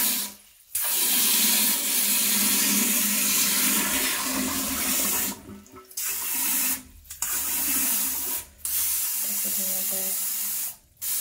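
Arofa handheld bidet sprayer spraying a hard jet of water into a toilet bowl: a steady hiss that stops briefly several times as the trigger is released and squeezed again.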